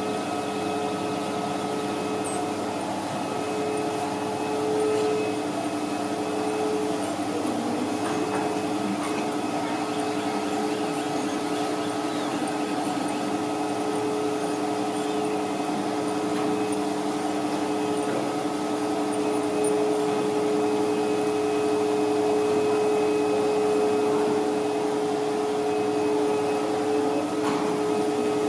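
Steady electric motor hum and whirr of the drive mechanism of a moving nativity scene, with a couple of faint clicks.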